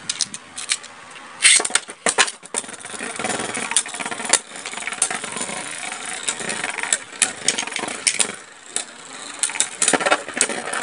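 Two Beyblade Burst spinning tops, one fitted with a marble as its tip, spinning in a plastic bowl stadium: a steady whirring of the tips on the plastic, broken by many sharp clacks as the tops strike each other and the rim.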